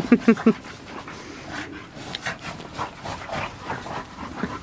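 French bulldogs playing: four quick, short barks in the first half second, then softer scattered play noises.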